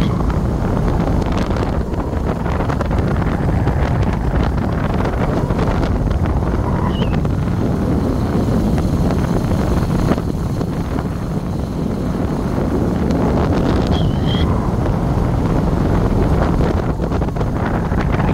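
Wind buffeting the microphone over the steady road noise of a vehicle travelling along a highway at speed, a heavy low rumble and hiss.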